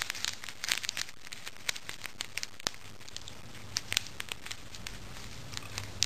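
Candy wrapper being crinkled by hand: irregular sharp crackles, thickest at the start and again about four seconds in.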